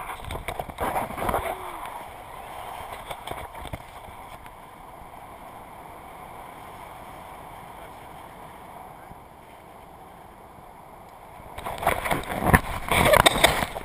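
Wind rushing over a GoPro camera's microphone during a tandem paraglider flight: a steady rush of airflow, turning into loud, gusty buffeting near the end.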